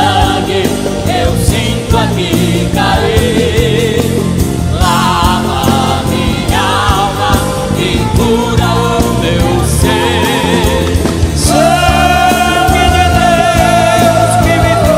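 Christian gospel song: a vocal group singing with vibrato over instrumental backing. About eleven and a half seconds in, a voice holds one long note.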